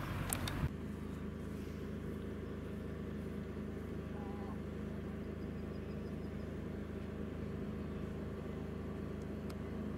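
Engine idling steadily, a low even hum. A louder rush of noise at the very start cuts off suddenly within the first second.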